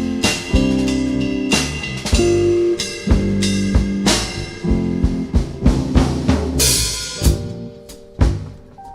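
Live band playing an instrumental passage: drum kit hits over sustained bass and chord notes, thinning out and growing quieter near the end.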